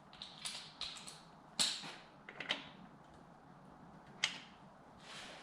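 A few scattered light clicks and knocks of hands working on parts of the motorcycle, the sharpest about one and a half seconds in and another about four seconds in.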